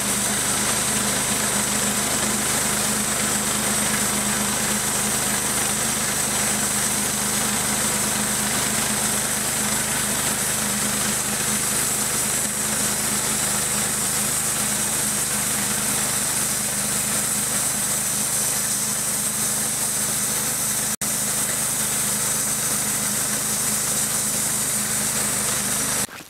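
Portable bandsaw mill cutting a white ash log: the mill's engine running steadily under load while the band blade saws through the wood.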